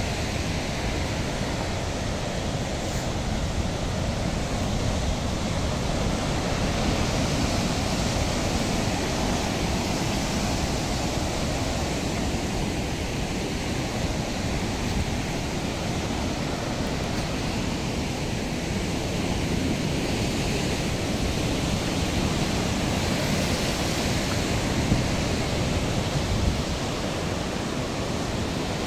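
Steady rushing noise of sea surf mixed with wind blowing across the microphone.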